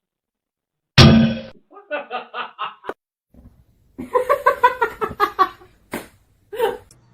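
A sudden loud noise about a second in, followed by a person laughing in short bursts, twice.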